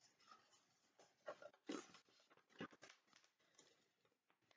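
Faint rustle of a picture book's paper page being turned: a few soft crinkles and taps between about one and three seconds in.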